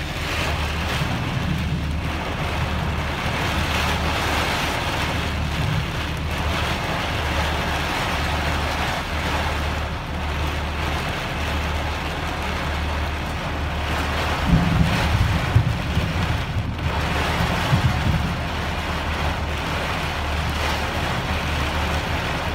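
Torrential rain pouring down onto pavement and standing water, a loud steady hiss, with wind rumbling on the microphone that gusts harder about two-thirds of the way through.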